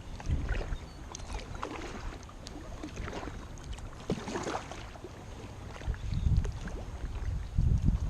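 Paddle strokes splashing in the water from an inflatable kayak, with wind buffeting the microphone, heaviest near the end.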